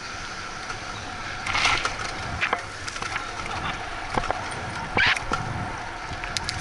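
Bicycle rolling along a street: steady tyre and wind noise with scattered small rattles and knocks from the bike, and two brief louder rushes of noise about a second and a half and five seconds in.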